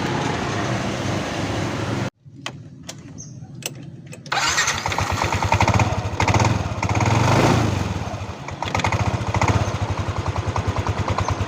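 Motorcycle engine running; about two seconds in it cuts off abruptly, leaving a quieter stretch with a few clicks, then the engine runs again from about four seconds in, swelling briefly as it is revved and settling into a rapid, even beat.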